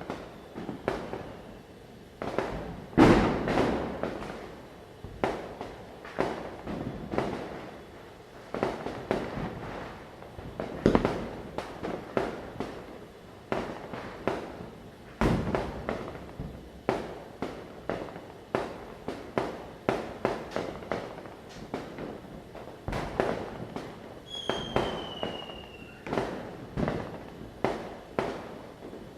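Diwali firecrackers going off: a continuous run of sharp bangs with echoing tails, one or two a second, the loudest about three seconds in. A high, thin falling whistle sounds about two-thirds of the way through.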